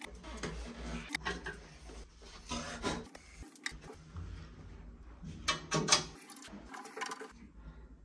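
Handling noise of plumbing work: gloved hands rubbing and knocking a braided steel flexible hose and metal fittings, with irregular scraping and a few sharp clicks and knocks, the loudest around six seconds in.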